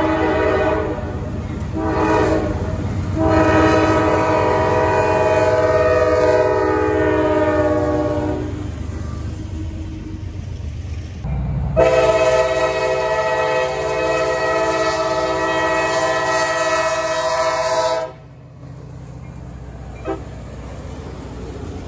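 Diesel freight locomotive horns sounding for a grade crossing: two short blasts and then a long one, a pause, and then another long blast that cuts off suddenly, over the low rumble of the passing train.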